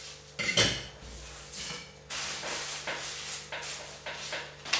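Crepe paper rustling and crinkling as a small stack of cut sheets is handled, with one sharp knock about half a second in.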